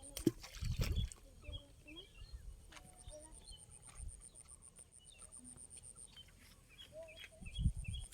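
Small birds chirping with short repeated calls, over a steady high pulsing buzz, with a few low thumps near the start and again near the end.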